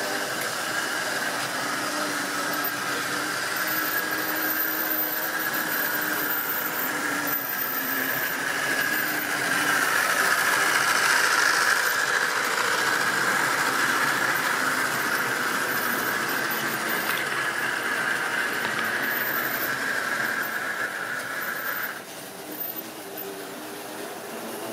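Tri-ang model train running on the layout's track: a steady high whine from the locomotive's electric motor over the rattle of wheels on rail. It gets louder as the train passes about ten seconds in and cuts off suddenly about 22 seconds in.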